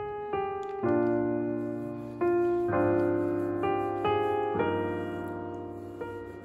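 Background piano music: a slow melody of single struck notes and chords, each fading before the next.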